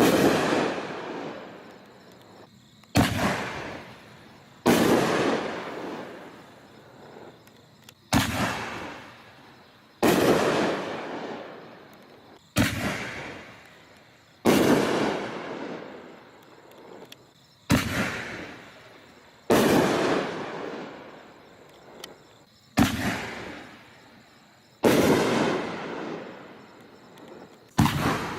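A 12-shot consumer fireworks mortar cake firing its shots one after another, about every two to three seconds. Each shot is a sharp bang that fades away over about two seconds.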